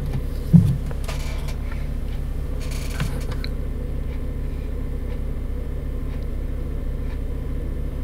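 Doosan 4.5-ton forklift's engine running steadily with a low hum, heard from the operator's seat.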